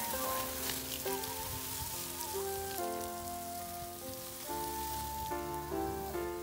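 Water from a hose spraying onto a bed of rice straw, a steady hiss, under background music carrying a melody of held notes that change in steps.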